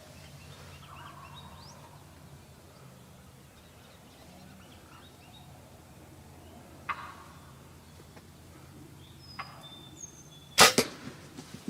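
A bow shot at a gobbler near the end: one sudden, loud, sharp crack followed by a few quicker, smaller knocks. Before it there are faint bird chirps and quiet outdoor background.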